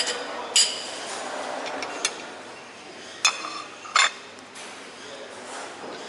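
Dishes and cutlery clinking: five sharp clinks with a short ring in the first four seconds, the loudest about half a second and four seconds in, over a steady low background hum.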